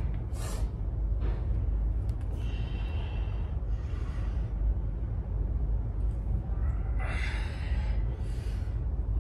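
A person breathing: a handful of audible breaths or sighs, the strongest about seven seconds in, over a steady low rumble.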